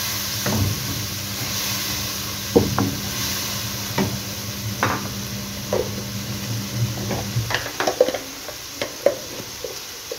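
Onion-tomato masala with spices sizzling in a wok as it is fried down (bhuna) with a little water, while a wooden spoon stirs it, giving scattered knocks and scrapes against the pan.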